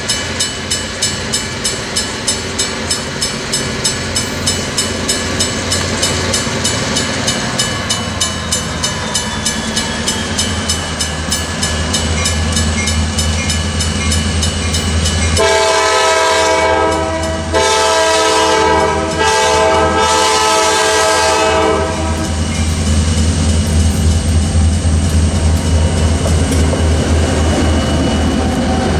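Railroad crossing bell ringing about twice a second as a Norfolk Southern diesel freight train approaches. About fifteen seconds in the locomotive horn sounds for the grade crossing in three blasts, the last held about two and a half seconds. Then the lead diesel locomotives rumble loudly past at close range.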